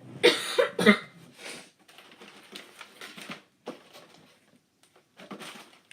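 Plastic squishy packaging crinkling and rustling as it is handled: a loud burst of crackling in the first second, then irregular softer rustles.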